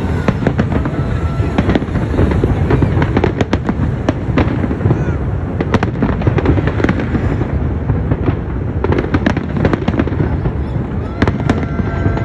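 A fireworks display: many shells bursting and crackling in quick, overlapping succession over a continuous low rumble.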